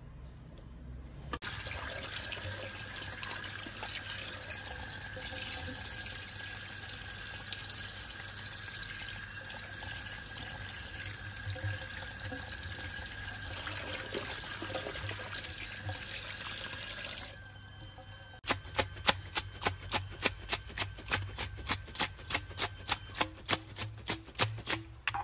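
Kitchen tap running onto pieces of fish in a stainless steel colander as they are rinsed; it comes on about a second in and is shut off after about sixteen seconds. Then a quick run of sharp clicks, about four a second.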